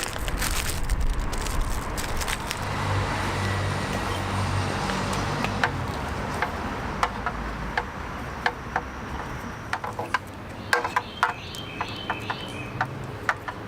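Scattered light clicks and rattles of plastic wiring connectors and a relay being handled and plugged together, over a steady background hum that swells and fades in the first half.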